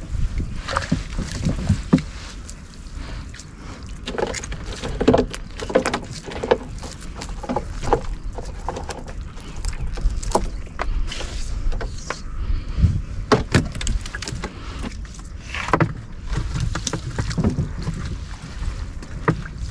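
Gill net being hauled by hand into a small fishing boat, with irregular knocks, clicks and wet, watery handling sounds over a low rumble.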